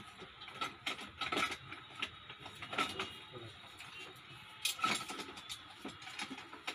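Irregular knocks, clicks and rustling of spare parts and packaging being handled and pulled from a crowded shop shelf, with a louder knock about five seconds in.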